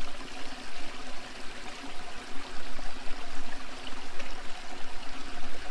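Steady rushing tyre and road noise of a moving car, heard inside the cabin, with a faint steady engine hum underneath.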